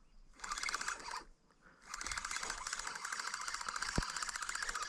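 Fishing reel being cranked to wind in line, a rapid, even clicking from the reel's gearing that stops briefly about a second in and then carries on steadily. The line is being retrieved after a bite went quiet, with no fish on it.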